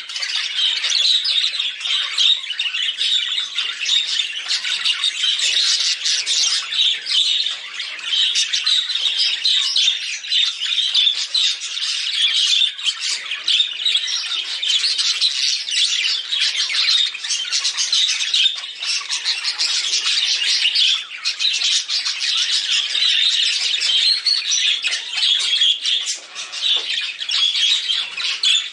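Budgerigars chattering and warbling without pause, a dense stream of quick high chirps and squawks.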